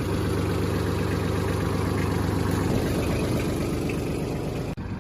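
Grapple skidder's diesel engine running steadily with an even low hum. Its note changes slightly about two and a half seconds in, and the sound breaks briefly near the end.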